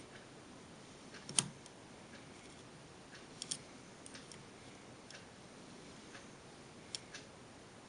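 Small, irregular metal clicks of a hook pick and tension wrench working the pins inside a Master Lock M5 padlock during single pin picking. The loudest click comes about a second and a half in, a quick pair follows a couple of seconds later, and another comes near the end, with fainter ticks between.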